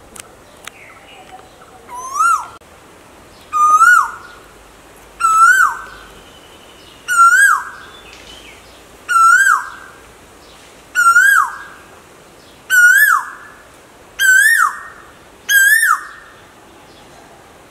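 Male Asian koel giving its whistled two-note "ko-el" call nine times in a row, about one call every two seconds. Each call rises and then drops off sharply, and the calls edge higher in pitch as the series goes on.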